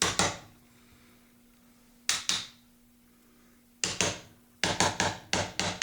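Sharp knocks of a chisel chipping at a hardwood dowel plug in a shotgun's wooden stock, trimming it flush. About ten knocks come singly and in quick runs, the densest run near the end.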